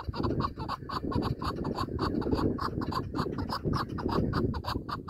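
Chukar partridge calling: a fast, unbroken run of short clucking 'chuk' notes, about seven a second, over a low rumbling noise.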